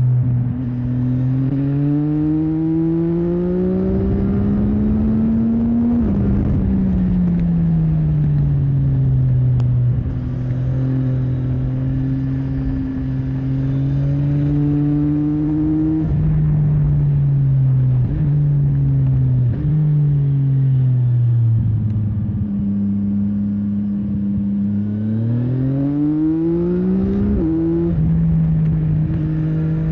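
CFMOTO 675NK motorcycle's three-cylinder engine pulling through the gears. Its pitch climbs under throttle and drops sharply at each gear change or roll-off, several times over.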